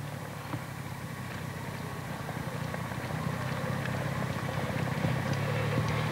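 An engine running with a steady low hum that grows gradually louder, as if drawing closer.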